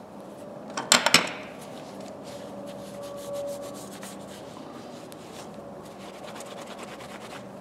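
A cloth shop towel rubbing over a pair of steel slip-joint pliers as they are wiped clean: a soft, steady rubbing. A few sharp clicks come about a second in.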